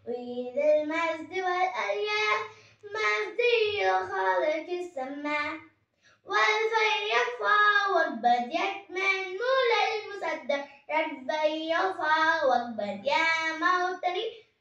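A young girl singing solo and unaccompanied, in phrases of held, gliding notes with short pauses for breath between them.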